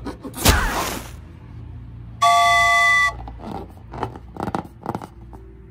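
Edited-in cartoon sound effects: a quick swish about half a second in, then a loud steady tooting note just under a second long, followed by a few soft clicks and taps.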